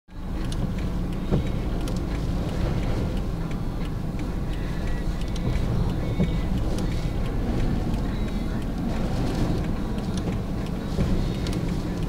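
Car cabin noise: a steady low rumble from the car standing at a junction with its engine running, with a few faint ticks scattered through it.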